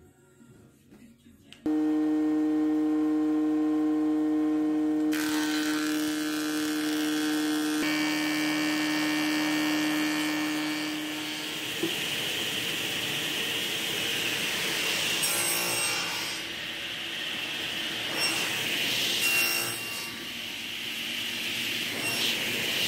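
Stationary woodworking machines running: a steady hum that starts abruptly about two seconds in, then from about halfway a table saw running, with a few short louder passes as wooden pieces are cut.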